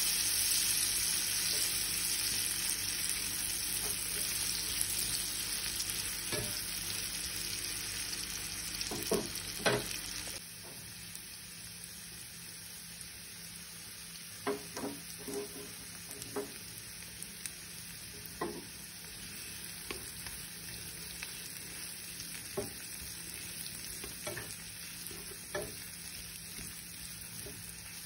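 Sliced onions, shallots and garlic sizzling in butter in a nonstick pan, with a utensil clicking and scraping against the pan as they are stirred. The sizzle drops noticeably about ten seconds in.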